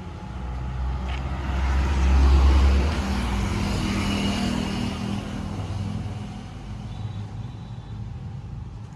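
A motor vehicle's engine rumble that swells to its loudest about two to three seconds in, then slowly fades.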